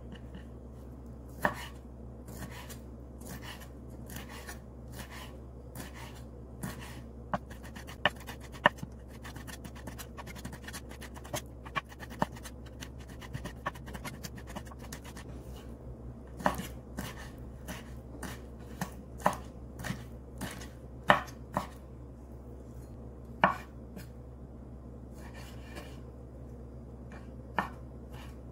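Kitchen knife chopping raw shrimp on a wooden cutting board: a run of short, sharp knocks as the blade strikes the board, irregular, about one to two a second, some much louder than others.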